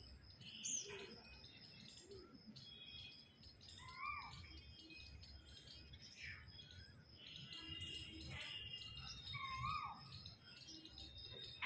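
Asian koel giving its rising "kuhu" call twice, once about four seconds in and again near ten seconds. Other small birds chirp throughout.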